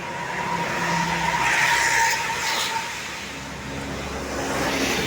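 Large road vehicle, likely a tour bus, passing close by: engine rumble and tyre noise swell to a peak about two seconds in, then ease off.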